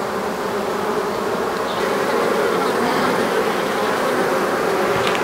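Honeybees of an open hive colony buzzing in a steady hum.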